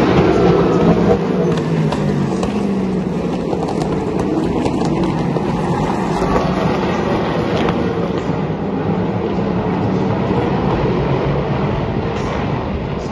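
Sports racing cars passing one after another on the front straight. The engine notes overlap into a continuous loud sound, and each one falls in pitch as the car goes by.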